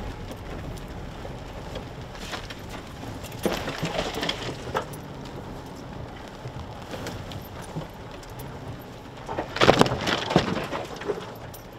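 Pickup truck rumbling along a rough, overgrown dirt track, with scattered knocks and rattles. About nine and a half seconds in, branches slap and scrape across the windshield and body in a burst of crackling.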